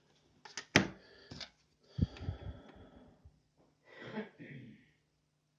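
Small handling noises: a few sharp clicks in the first second, then short rustling, breathy noises, twice.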